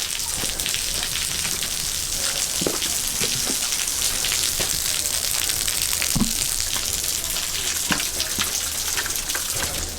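Steady hiss of rushing water, with a few faint knocks.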